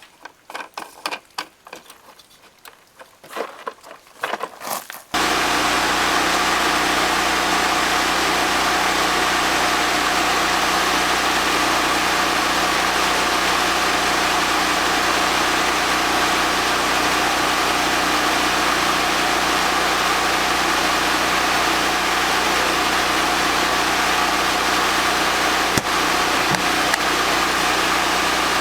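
Light scattered clicks and rattles of handling, then a loud, steady machine drone with a constant hum that cuts in suddenly about five seconds in and runs on unchanged, with a single sharp click near the end.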